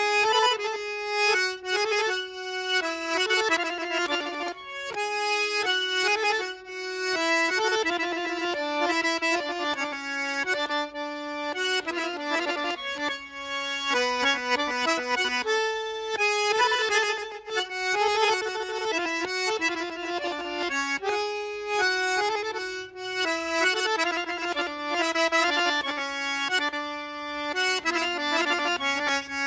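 Azerbaijani garmon, a button accordion, playing a quick-moving melody over longer, lower held notes.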